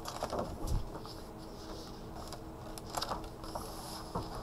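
Pages of a large hardcover picture book being turned by hand: soft paper rustling and light handling clicks, a little louder about three seconds in, over a faint steady hum.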